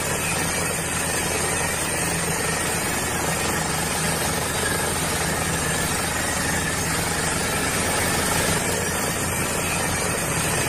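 Small motor on a toy tractor running steadily, spinning a toothed digging wheel that grinds through soil and gravel.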